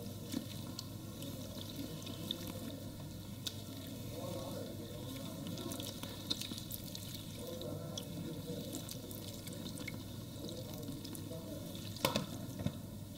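Water running from a handheld sink sprayer onto a head of hair and splashing into a shampoo basin, with fingers rubbing the wet scalp. A couple of sharp clicks near the end.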